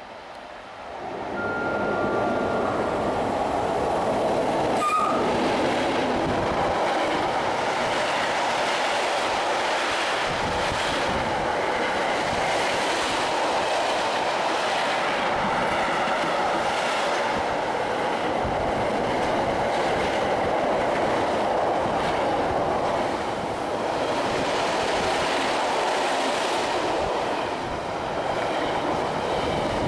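Electric-hauled intermodal freight train passing close at speed. The sound of wheels on rail rises sharply about a second in as the locomotive arrives, then carries on as a steady rush of tank and container wagons with a rhythmic clatter over the rail joints.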